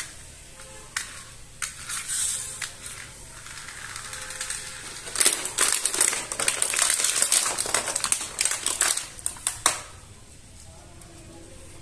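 Thin clear plastic blister packaging crinkling and crackling as a toy car is pulled out of it, a dense run of crackles from about five seconds in until near ten seconds. A few lighter handling clicks come before it.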